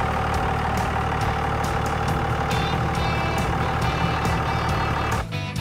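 Dodge Ram 2500 pickup engine running steadily at low speed as the truck is backed up toward a slide-in truck camper. Background music with a steady ticking beat plays over it, and the engine sound stops about five seconds in.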